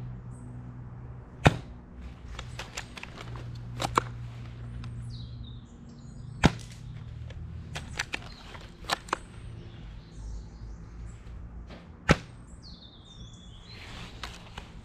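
Ares Striker 01 bolt-action airsoft rifle fired through a homemade silencer packed with mixed kitchen and floral foam: a few sharp, muffled snaps of the shots spaced several seconds apart, with quieter clicks of the bolt being cycled between them.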